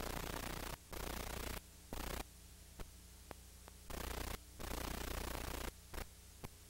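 Bursts of hissing static that cut in and out abruptly, several times, over a steady low electrical hum, with a few faint clicks. This is noise from an old videotape with no program sound.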